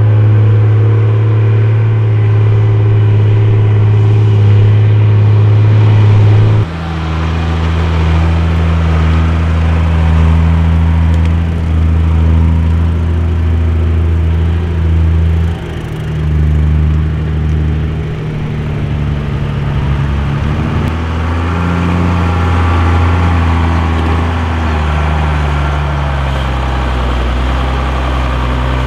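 Mercedes-Benz Unimog U1700L truck's diesel engine running at low speed as the truck crawls along. A steady low drone gives way abruptly about six seconds in to a lower engine note that rises and falls several times.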